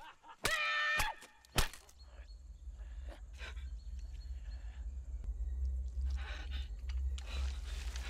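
A short high-pitched cry with a few sharp hits in the first two seconds of a staged fight. After that, a steady low rumble runs under heavy breathing and groans.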